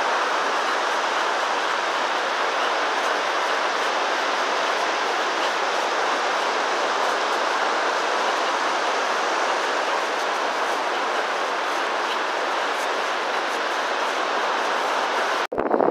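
Steady rushing noise of wind and surf on an open beach, even and unbroken, cutting off abruptly near the end.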